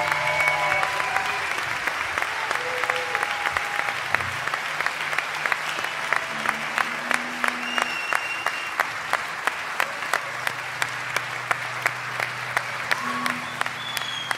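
Theatre audience applauding and cheering with shouts and whistles after the song ends. About halfway through, the clapping falls into a steady rhythm of about two claps a second. A low steady hum lies underneath.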